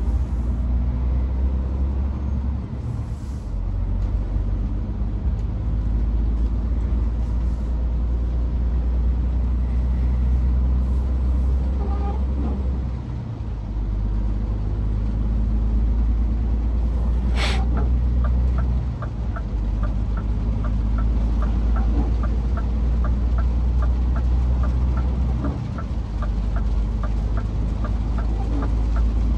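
Scania S500 truck running at road speed, a steady low engine-and-road drone. A sharp click comes about two-thirds of the way through, followed by a fast, even ticking of about three ticks a second.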